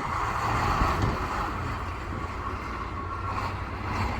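Heavy all-terrain shift vehicles running and moving, heard as a steady engine hum under an even hiss.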